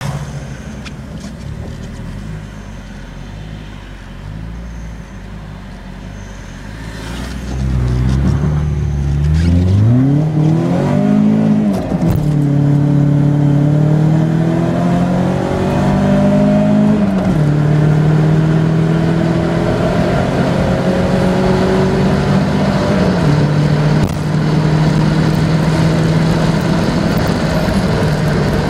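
Peugeot 306 engine, heard from inside the cabin, running at low revs for about seven seconds, then revving hard as the car accelerates from a standstill. The engine pitch climbs through the gears, dropping at each of three upshifts before climbing again.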